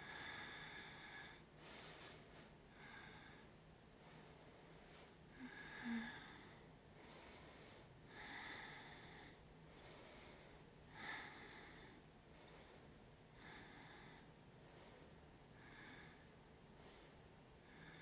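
Faint, slow breathing in and out through the nose, a breath every two to three seconds, over near-silent room tone.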